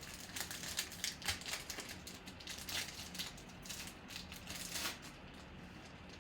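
Baseball cards being handled and flipped through by hand: quick, irregular soft clicks and rustles, which thin out about five seconds in.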